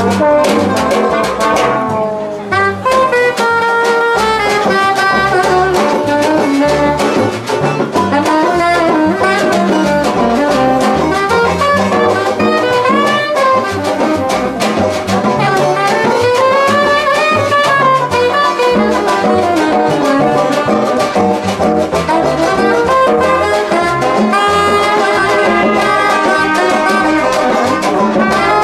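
A brass band playing a tune, with melody lines rising and falling over a steady low beat.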